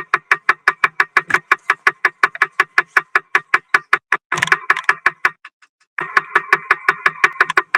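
Music with a fast, even ticking beat, about five or six ticks a second, over held tones; it drops out briefly about five seconds in, then comes back.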